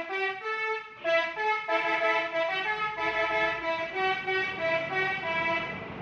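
Tour bus 'telolet' multi-tone horn playing a quick tune of short notes that step up and down in pitch, with a brief break about a second in. The tune stops near the end.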